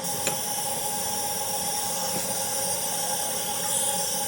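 Mansfield toilet tank refilling after its water supply has been partly opened: a steady hiss of water flowing in through the fill valve.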